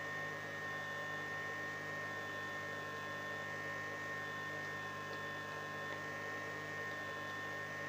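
Steady electrical hum with a higher whine held on a few fixed pitches, from a solar inverter driving a Soviet 500-watt immersion heater through a power-reducing diode while it heats a mug of water close to the boil.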